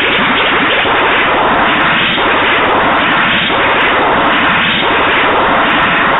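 Loud rushing, bubbling water, thick with rapid short rising gurgles of bubbles.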